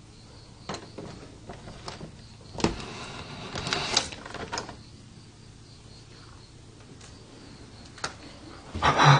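A padlock and metal hasp on a wooden door being handled: a few clicks, a knock, then about two seconds of metal rattling. A louder knock and clatter comes near the end.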